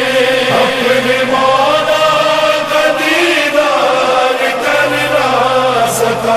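Chanted Shia noha lament: voices holding long, slowly shifting notes without clear words.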